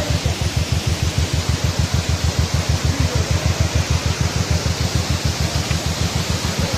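Waterfall cascading over rocks: a loud, steady rush of water, with a fast low flutter underneath.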